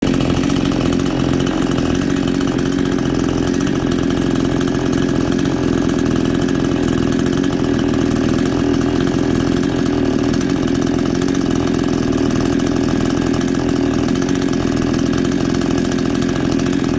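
Pinkway 63cc two-stroke chainsaw idling steadily at an even pitch, sitting on the ground during a break-in heat cycle.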